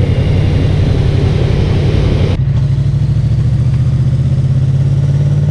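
Yamaha MT-07's parallel-twin engine running on the move, with a rushing noise over it. About two and a half seconds in, the rush cuts off suddenly and the engine carries on at a steady, even note.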